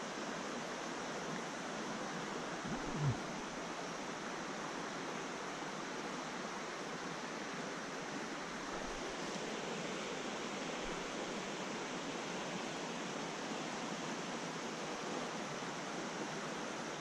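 A shallow mountain trout stream running over rocks: a steady rush of water. There is one brief low sound about three seconds in.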